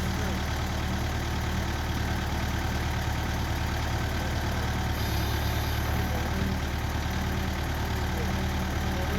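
Backhoe engine running steadily at idle, with a brief change in its tone about five seconds in.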